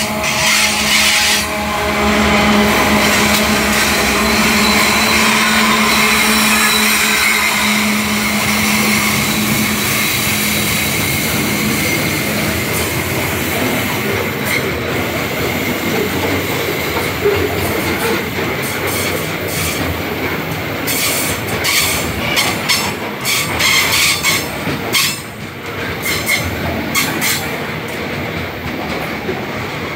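Diesel-electric freight locomotives passing close by with a steady engine drone, then empty covered hopper wagons rolling past, wheels clattering on the rails, with bursts of clacking about two-thirds of the way through.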